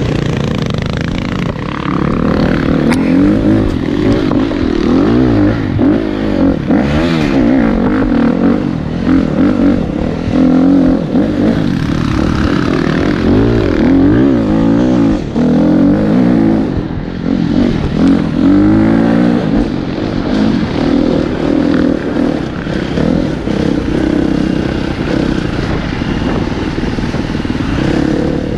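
Dirt bike engine close to the handlebar camera, revving up and down over and over as the throttle is opened and closed along a rough trail.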